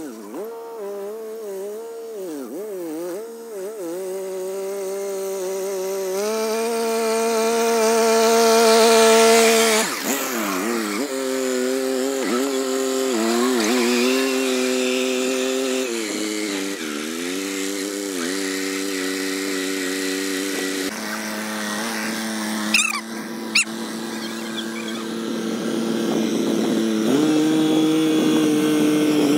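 Diesel farm tractor engine pulling a tine cultivator through soil, its note sagging and recovering in waves and stepping up and down in pitch a few times. Two sharp clicks come just past the middle.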